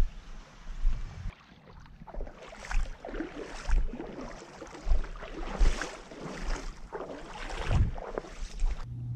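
Footsteps sloshing through shallow river water in waders, about one step a second.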